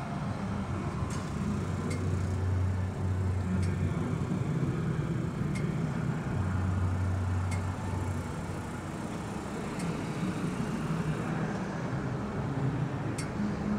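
The 4.1-litre V8 of a 1985 Cadillac Fleetwood Brougham idling steadily, heard from the open engine bay as a low, even hum. A few light ticks sound now and then.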